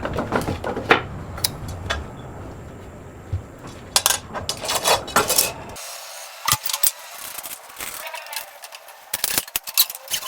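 Irregular clicks, taps and light clatter of small wooden pieces and tools being handled in a woodworking shop, a few sharper knocks among them.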